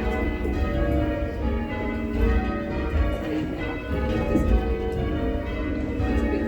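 Ring of eight church bells, mostly cast in 1694 by Philip Wightman with others from 1746 to 1784, rung in changes: strike follows strike in quick succession, with the tones overlapping and ringing on. The ring has a tad shrill and dry tone.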